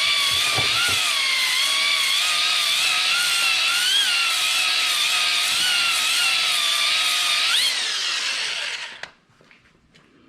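Electric drill spinning a flex hone inside a Kawasaki KX100's two-stroke cylinder, its motor whining at a steady, slightly wavering pitch as the hone clears scoring from the cylinder wall. Near the end the pitch jumps up, then the drill winds down and stops.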